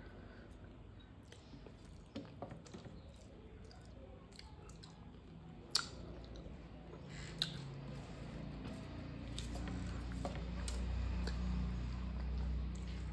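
Close-up wet, squishy chewing of a mouthful of rice, with scattered soft mouth clicks and two sharp clicks about six and seven and a half seconds in. From about eight and a half seconds the chewing gets louder and lower.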